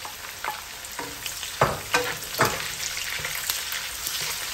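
Chicken innards stir-frying in a hot pan: a steady sizzle, with a few sharp knocks as they are stirred, about a second and a half to two and a half seconds in.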